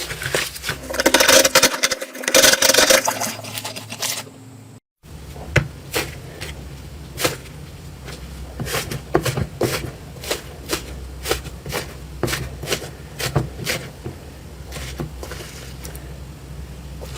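Slime being handled: dense crunchy crackling for the first few seconds, then, after a brief break, a run of sharp clicks and pops about two a second.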